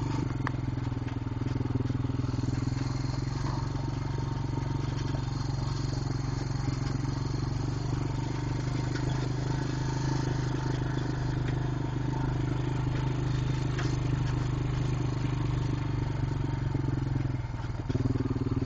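ATV engine running steadily at low cruising speed, with some light rattling. Near the end the engine note dips briefly, then comes back slightly higher and louder.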